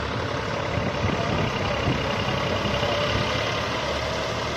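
Tractor-powered wheat thresher running steadily as wheat is fed in: the tractor engine's low hum under the noise of the spinning threshing drum.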